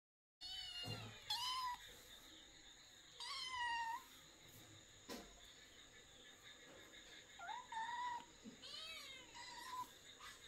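White kitten meowing repeatedly in short, high, bending calls, about five or six over the stretch, with a single click about halfway through.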